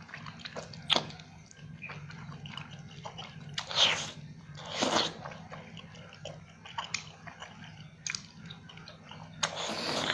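Close-up mouth sounds of eating wide starch noodles in broth: wet chewing and small smacks, with loud slurps of the noodles about four and five seconds in and again near the end.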